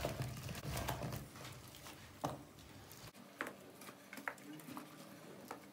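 Gloved hands mixing potato wedges and onion in spice sauce in a plastic bowl, a soft wet squelching at first, then a few light taps as wedges are set down on a metal oven tray.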